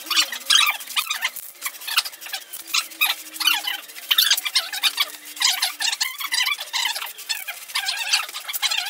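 Aerosol spray paint can hissing in short, repeated bursts as fresh red paint is sprayed onto a metal pipe vise.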